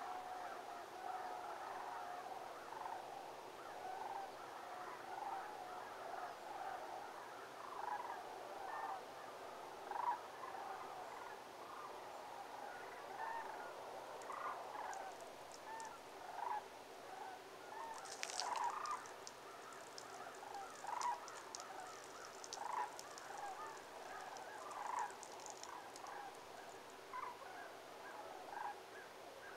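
A large flock of sandhill cranes calling: a continuous chorus of many overlapping calls, with single calls standing out every second or so.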